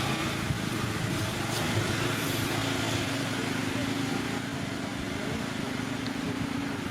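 An engine running steadily amid outdoor background noise, with a steady hum from about two seconds in.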